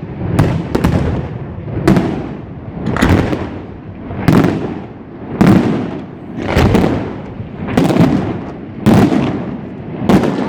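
Fireworks going off in a steady sequence: about ten sharp bangs, roughly one a second, each trailing off before the next.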